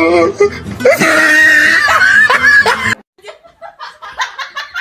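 High-pitched laughing with squealing rises and falls, cut off abruptly about three seconds in. Quieter quick, short sounds follow.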